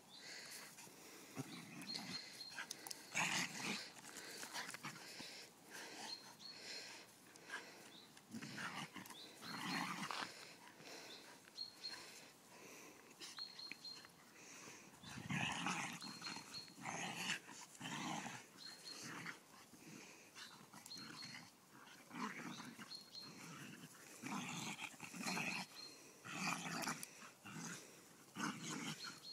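A golden retriever puppy and a whippet-cross dog growling in short, irregular bouts every second or two as they play tug-of-war over a stick.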